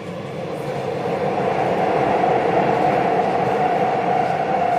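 Dubai Metro train running on its elevated track, heard from inside the car: a steady running noise with a hum, growing louder over the first two seconds and then holding.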